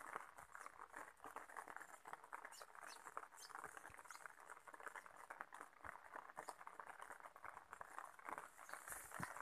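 Light rain pattering faintly and steadily, a dense crackle of small drops.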